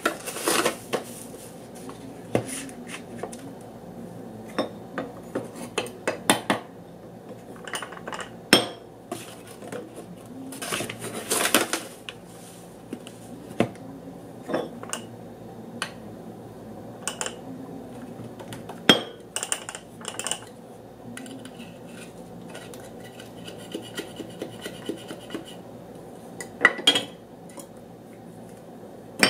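Stainless-steel espresso filter cup and coffee scoop clinking and tapping against a ceramic saucer while ground coffee is spooned in, in many scattered knocks, with a few longer bursts of rustling from the coffee bag.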